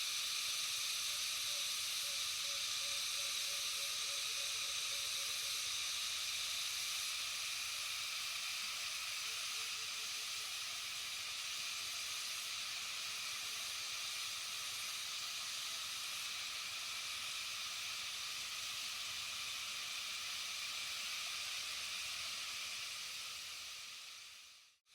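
Steady chorus of many cicadas, a dense high-pitched buzz that fades out near the end.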